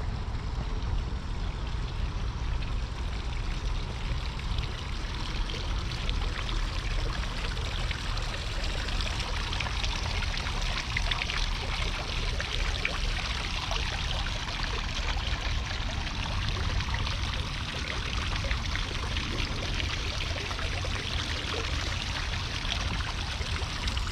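Cruiser skateboard wheels rolling steadily over pavement: a continuous gritty hiss with fine crackle over a low rumble.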